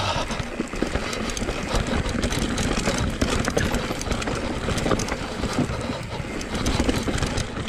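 Cube Stereo 170 Race full-suspension enduro mountain bike riding fast down a rooty, rocky trail: knobby tyres rumbling over roots and rock slabs, with a constant dense clatter and knocking from the bike.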